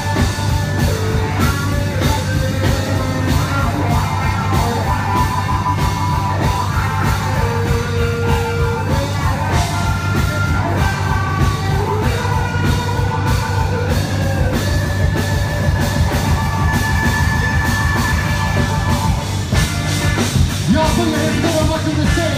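Live funk band playing loud. A drum kit and a steady bass line run under held melodic notes.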